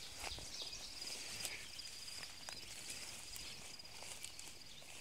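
Footsteps swishing through dense weeds and grass, with an insect's steady high-pitched trill going on behind.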